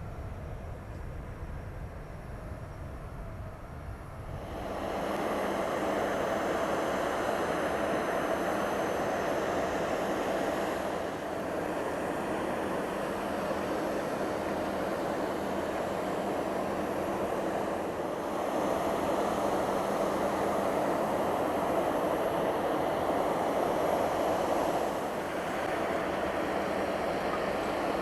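Boeing 767-300ER's jet engines running loud, coming up suddenly about four and a half seconds in and holding as a steady engine noise with a faint high whine on top. Before that only a low rumble is heard.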